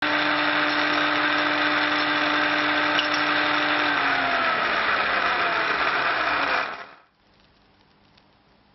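Drill press motor running as a twist drill bores into a steel nail-header blank, with a steady hum and whine. About four seconds in the pitch starts falling as the drill slows, and then the sound cuts off abruptly.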